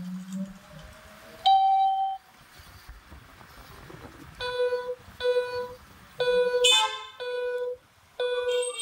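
A vehicle horn honking: five short toots of the same steady pitch, each about half a second, starting about halfway through, with one harsher honk of another pitch in among them. Before that, a faint rising whine in the first second and a half.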